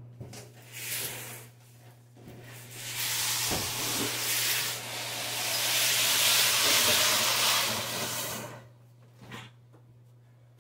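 A large cardboard bicycle box being dragged and slid over carpet: a rough scraping rustle that builds for several seconds and then fades, with a couple of light knocks as it is handled and set down.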